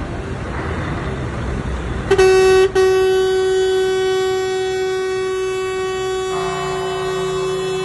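Truck air horns blowing as a convoy of lorries passes: a long steady horn blast starts about two seconds in, breaks off for a moment, then holds on, and a second, lower horn joins near the end, over the rumble of engines and road noise.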